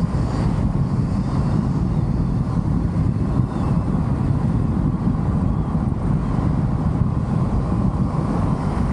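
A car driving steadily along a road: a continuous low rumble of engine and tyre noise with some wind noise.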